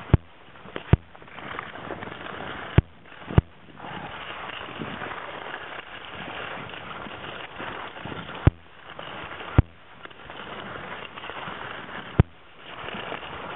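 Skis sliding fast over packed snow on a downhill run, a steady hiss, broken by about seven sharp knocks spread through the descent.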